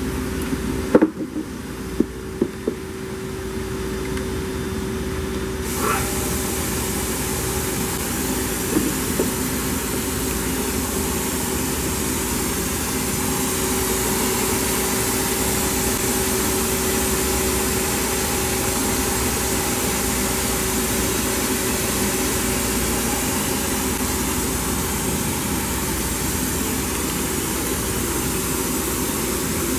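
Toyoda FV1165 CNC vertical machining center running under power: a steady mechanical hum with a hiss. A few sharp clicks come in the first three seconds, and the hiss grows louder about six seconds in.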